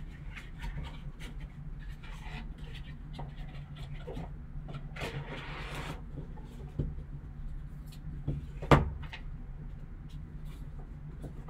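Gloved hands handling a foam box insert and a cardboard trading-card box: scattered rubbing and scraping, a longer rustle about five seconds in, and one sharp knock near the nine-second mark, over a steady low hum.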